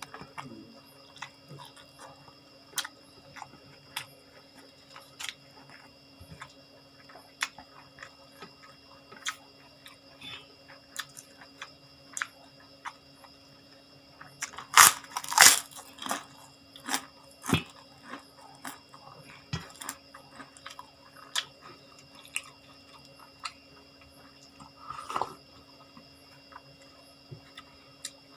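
A person chewing and biting into crunchy food, with a scatter of short crunches and a louder burst of crunching about halfway through. A faint steady hum runs underneath.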